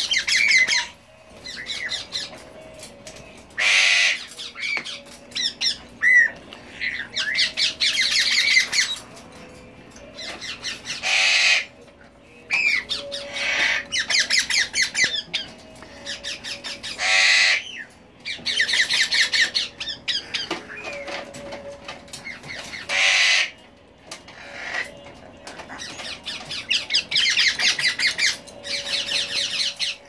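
Juvenile Congo African grey parrots, about ten weeks old, squawking again and again in harsh, rasping bursts of a second or so, with short chirps in between.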